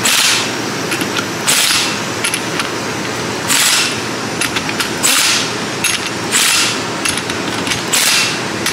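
Pneumatic impact wrench hammering ring gear bolts onto a GM 10-bolt differential carrier, in six short bursts about every second and a half as it moves from bolt to bolt, over a steady mechanical noise. The bolts are left-hand thread and are only being snugged up before torquing.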